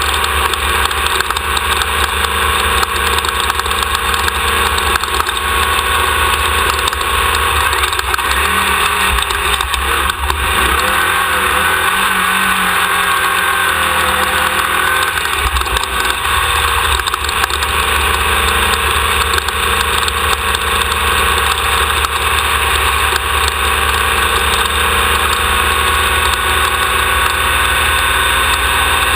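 Off-road desert race vehicle's engine running continuously under load, picked up by a camera mounted on the vehicle. The engine note wavers and shifts in pitch for several seconds about a third of the way through, then settles back to a steady run.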